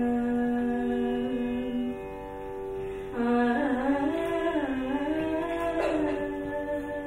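Indian classical music in the Carnatic style: a melody line over a steady drone, held on one note, then from about three seconds in sliding and wavering through ornamented turns.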